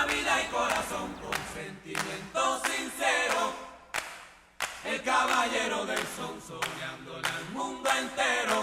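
A song with voices singing, sounding like several voices in harmony; it starts abruptly at the beginning.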